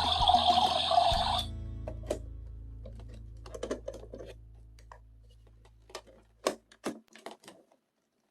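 A loud hiss cuts off about a second and a half in. Light plastic clicks and taps from toy handling follow, scattered and irregular, over a low background music tone that fades away.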